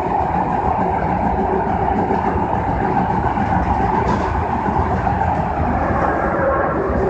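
Osaka Metro 66 series subway train running through a tunnel, heard from inside the car: a steady rumble and roar of the wheels on the rails.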